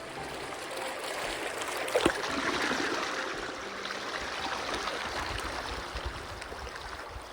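Shallow, sand-bottomed Medano Creek flowing and rippling, swelling louder for a few seconds after a single sharp knock about two seconds in.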